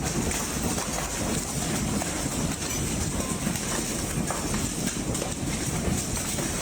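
Large hailstones pounding down in a dense, unbroken clatter of impacts, over heavy wind noise in a severe hailstorm.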